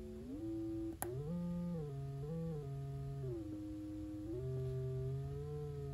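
Business card synthesizer playing a triangle-wave tone through a small speaker, smooth like a sine wave, its pitch sliding up and down between a handful of held notes. A faint click about a second in.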